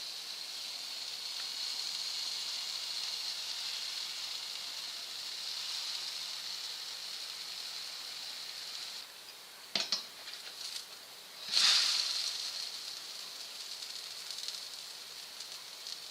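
Pancake batter sizzling in butter in a frying pan, a steady high hiss. Just before ten seconds in the hiss dips and there are a few light knocks, then a brief louder flare of sizzling about twelve seconds in.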